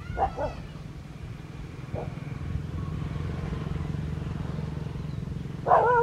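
Short pitched animal calls over a steady low hum, ending in a loud wavering call.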